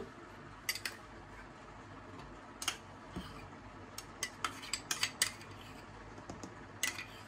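A spoon clicking and scraping against a small container and the rim of a plastic personal blender cup as chocolate ice cream is spooned in. There are about a dozen light, scattered taps, most of them in a cluster around the middle.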